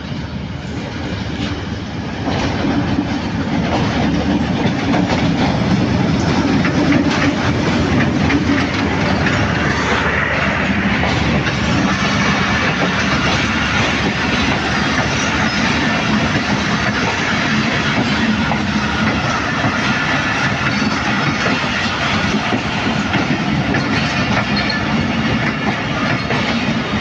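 A diesel-hauled passenger train pulling into a station, its locomotive and then a long line of coaches rolling past close by on the rails. The sound grows louder about two seconds in as the train nears, then stays a steady rumble of wheels on track.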